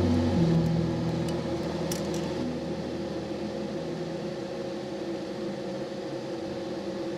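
Background ambient music: a held synth chord that slowly gets quieter, its low bass note dropping out just after the start. A few faint clicks sound between about half a second and two and a half seconds in.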